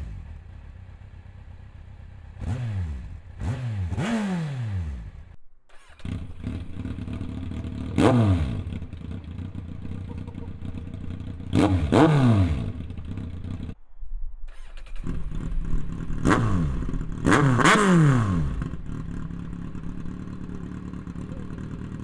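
Kawasaki Z1000 inline-four idling and blipped by hand, revving sharply and falling back, in three clips with short cuts between them. The first is through the stock silencers, the second with the silencers removed and the pipes open, and the third through a MIVV Double Gun short slip-on.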